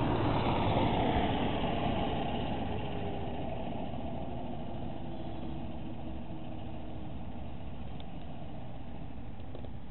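A motor engine running steadily, louder at first and fading over the first few seconds into a low, even rumble.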